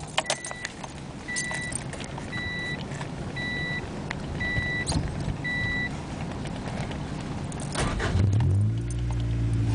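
Acura Integra's dashboard warning chime beeping six times, about once a second, while keys jangle in the ignition. Near the end the four-cylinder engine cranks and catches, then runs loud and low with its exhaust fallen off.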